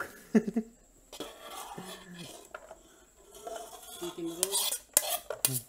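A metal spoon scraping chopped vegetables out of a bowl into a stainless steel mixing basin, with several sharp clinks of the spoon against the bowls in the second half.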